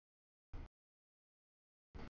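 Near silence broken by two short snatches of a passing double-stack freight train's rolling rumble, each cutting in and out abruptly: one about half a second in, one just before the end.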